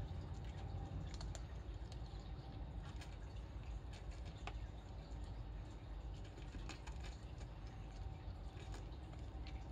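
A kitten chewing dry cat food, its crunching heard as scattered, irregular sharp clicks over a steady low background rumble.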